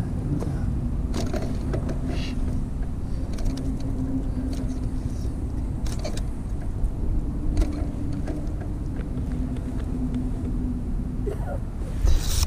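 A motor running steadily with a low, even hum. Scattered light clicks and rustles from handling come over it, with a louder rustle near the end.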